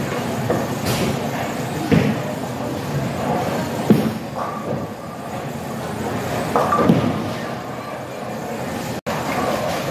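Bowling alley noise: a bowling ball thuds onto the lane about four seconds in and rolls away, and a clatter of pins follows about three seconds later, over a steady rumble of balls rolling on the other lanes.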